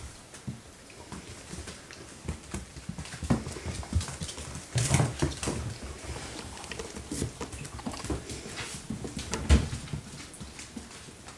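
Dogs moving about on a hard floor: irregular clicks, taps and scuffs of paws and claws, with one louder thump about nine and a half seconds in.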